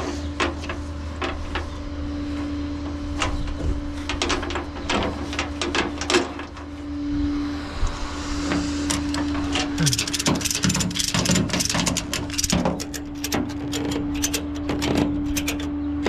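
Irregular clicks and knocks of hand tools being worked on a vehicle, over a steady hum, with the clicking coming thicker in the second half.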